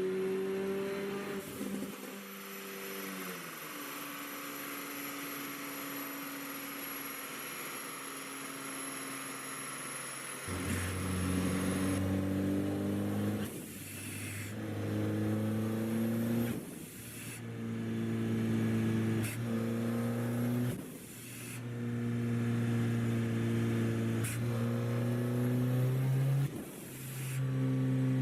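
Mercedes-AMG CLA45 (W117) turbocharged 2.0-litre four-cylinder on a dyno with a Stage 2 ECU tune. The revs fall, it runs lighter for several seconds, then it pulls hard under load. The sound breaks off sharply four times as it shifts up through the gears.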